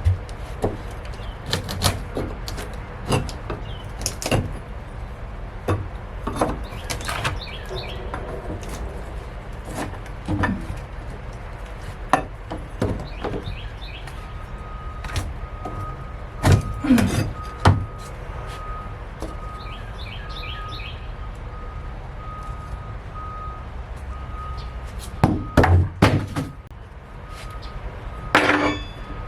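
Irregular knocks and clunks of building materials being pried apart and handled during demolition, louder near the end. Birds chirp now and then, and a repeating high beep starts about halfway.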